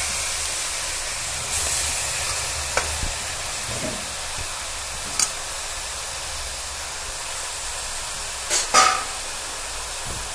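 A steady hiss, with a couple of light clicks and a short, louder clatter about eight and a half seconds in.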